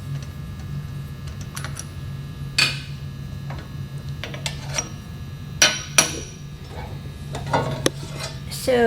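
Scattered metal clinks and taps with a short ring, from wrenches, the arbor screw and the steel blade of a sliding table saw being handled as the blade is taken off the arbor, over a steady low hum.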